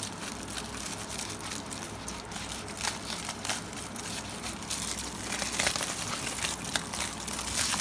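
Aluminium foil wrapping being unwrapped by hand, crinkling and crackling irregularly, busier over the last few seconds.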